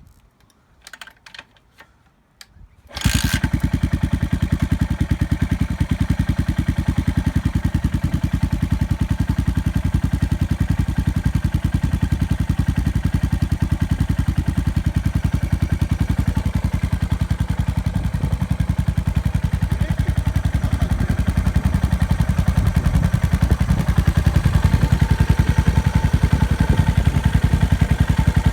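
Yamaha SR400's air-cooled single-cylinder engine starting after a few short clicks, catching about three seconds in, then idling with a steady, even beat. It runs a little louder near the end. The engine has been repaired after making an abnormal noise.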